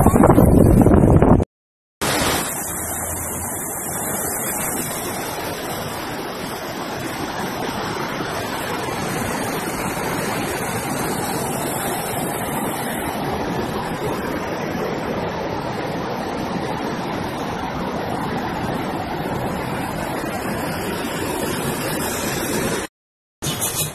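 Steady rush of a fast, silt-laden Himalayan river, the Alaknanda at its confluence with the Dhauliganga, an even wash of water noise. The sound breaks off briefly near the start.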